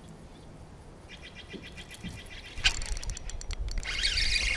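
Spinning reel being cranked with a fine, even ticking. About two and a half seconds in, the sound turns sharper: a fast run of clicks, then a rushing hiss from about four seconds in, as a smallmouth bass takes the lure.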